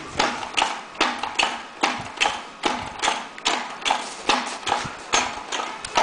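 Hand winch on the tower leg being cranked to hoist a 3.0 m microwave dish, clacking in a steady rhythm of about two to three sharp knocks a second.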